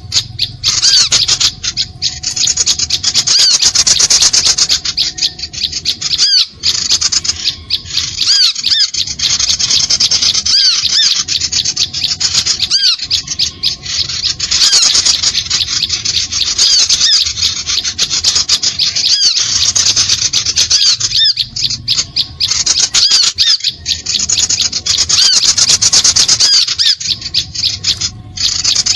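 Bird-lure recording of small birds calling together in a dense, harsh, rapid chatter of repeated short chirps, broken by brief pauses.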